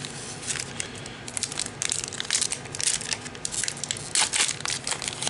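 Wrapper of a trading-card pack crinkling as it is torn open and handled, a quick run of sharp crackles.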